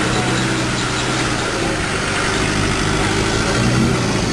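Diesel four-wheel-drive engine running steadily at low revs, heard from inside the cabin along with general body and drivetrain noise.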